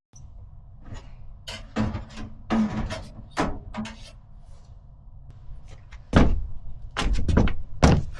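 Scattered knocks and rustling from objects being handled, with a run of louder clattering knocks near the end.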